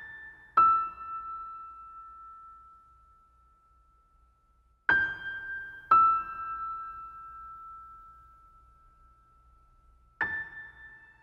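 Slow, sparse piano music: pairs of notes struck about a second apart, each left to ring and die away, the pair repeating about every five seconds.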